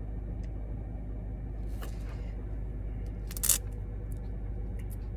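Steady low background hum with a few faint clicks, and a brief rustle about three and a half seconds in.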